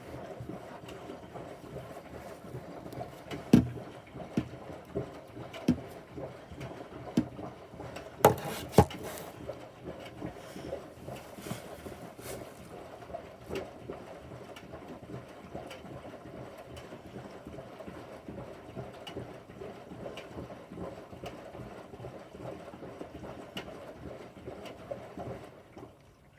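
Bosch front-loading washing machine mid-wash: water sloshing as the drum turns, with occasional sharp knocks, the loudest a few seconds in and again about eight seconds in.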